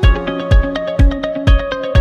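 Background music with a steady kick-drum beat, about two beats a second, under a melody of short pitched notes.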